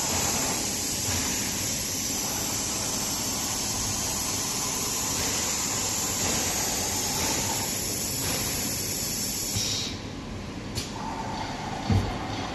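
CNC glass edging machine running with a steady hiss. About ten seconds in the hiss drops away, followed by a short click and then a short knock near the end.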